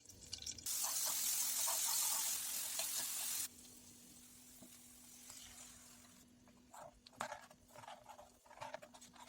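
Bread patties frying in hot oil with a loud, even sizzle that cuts off abruptly after a few seconds to a quieter sizzle. This is followed by light scrapes and clicks of a kitchen utensil.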